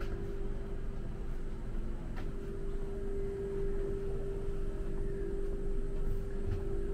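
Double-deck electric passenger train standing at the platform, its onboard equipment giving a steady hum with a low rumble underneath.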